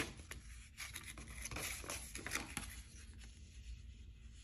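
Old paper packaging and booklets being handled, with light rustling and small scattered ticks and taps, one sharper tap right at the start.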